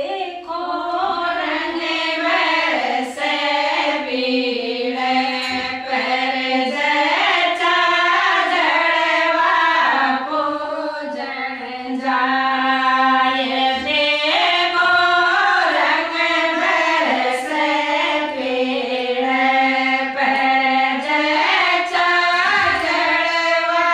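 Group of women singing a Rajasthani folk song of the jalwa (well-worship) rite together, one melodic line with a steady held low note beneath it.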